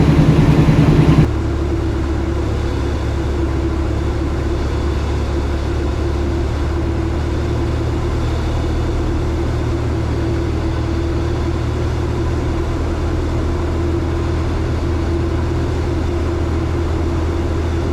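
Cessna 172R's four-cylinder Lycoming engine and propeller running at a steady pitch, heard inside the cockpit. A louder stretch with hiss in the first second cuts off abruptly, leaving the even drone.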